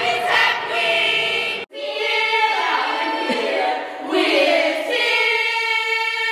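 A group of teenage girls singing together in long held notes. The singing breaks off abruptly about two seconds in and starts again.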